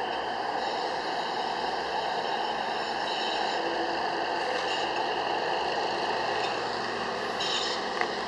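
Steady noise of distant motor vehicles, with one short sharp click about 8 seconds in.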